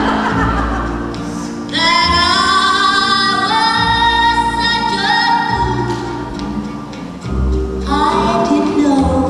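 A song with a woman singing long, high held notes over instrumental backing with a bass line.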